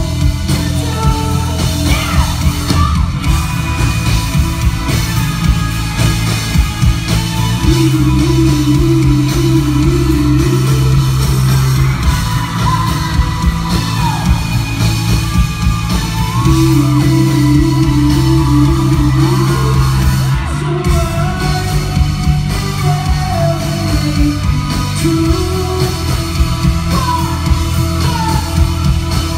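Rock band playing live: a male singer's vocals over electric guitar and heavy bass, heard from within the audience.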